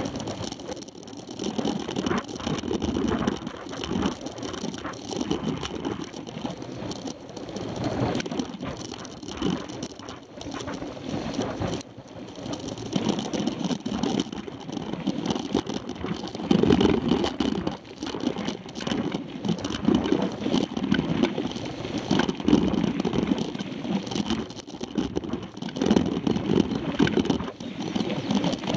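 Mountain bike riding over a dirt road, picked up by a camera mounted on its handlebars: a constant rumble from the tyres and bike, with frequent rattling knocks over the bumps.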